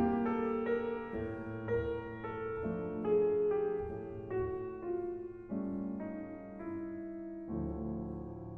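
Slow, gentle piano music, a melody of held notes changing about every half second to a second.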